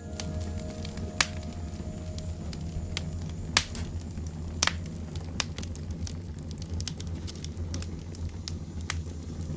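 Crackling fire ambience: sparse, irregular sharp pops and crackles over a steady low rumble.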